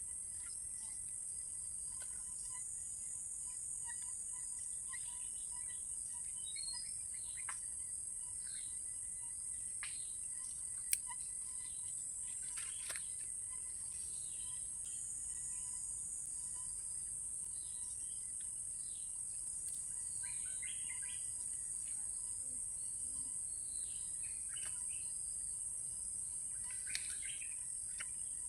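Steady high-pitched drone of insects, with scattered short bird chirps and calls over it, busiest in the second half. A single sharp click about eleven seconds in.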